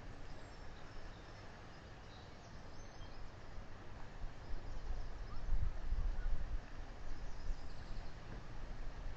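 Wind gusting over the microphone, an uneven low rumble over a steady hiss that grows stronger about halfway through.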